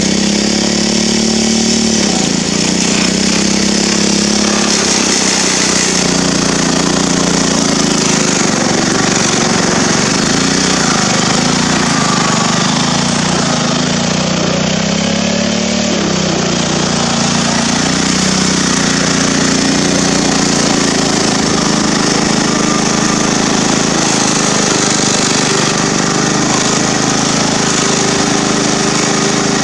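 Cub Cadet mower's small gas engine running steadily, its pitch wavering up and down a little as throttle or load changes.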